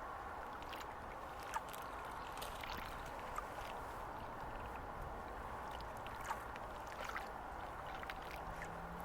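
Small waves lapping and sloshing at the edge of a tidal estuary: a steady wash of water with scattered light ticks, the sharpest three of them about a second and a half, three and a half and six and a half seconds in, from rain falling.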